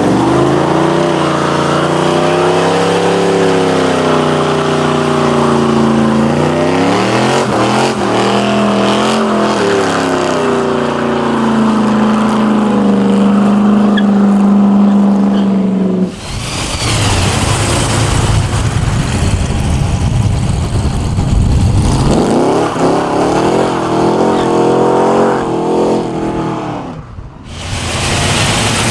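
American V8 muscle car engines revving hard during burnouts, in back-to-back clips. The first engine rises and falls in pitch, then holds a high, steady rev until it cuts off about halfway through. A rougher, noisier engine follows, with more rising and falling revs near the end.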